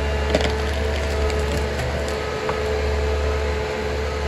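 A John Deere wheeled forest harvester's diesel engine running steadily as the machine drives on chained tyres, with a steady hum and a mid-pitched whine. A few sharp clicks and cracks come in the first half.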